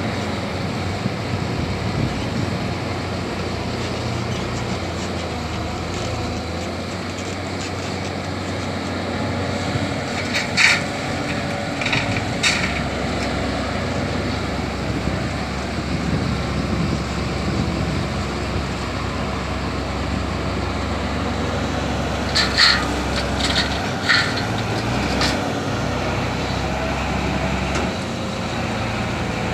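Diesel engine of a CAT 320D excavator running steadily under work while loading soil into a dump truck, with a few sharp knocks about ten seconds in and a cluster of them a little past twenty seconds.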